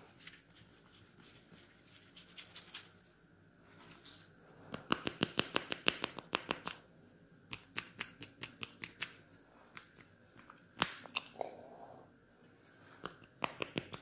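Hair crackling close to the ear as fingers rub and pull strands of hair at the scalp, the 'hair cracking' head-massage technique: sharp little clicks, a fast run of them about five seconds in, then scattered single ones.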